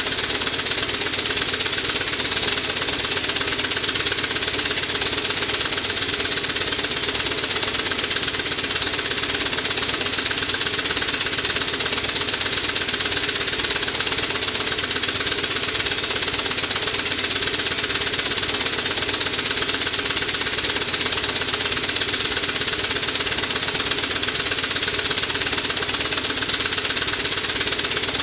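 Stuart 4A steam engine running fast and steady under load, its exhaust steam beating in a rapid, even rhythm over a constant hiss as it drives an alternator lighting a 100 W bulb.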